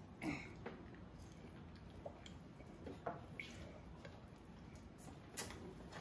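Faint gulps and swallows of a child drinking a glass down in one go, with a few soft mouth and glass sounds scattered through and a sharper click near the end.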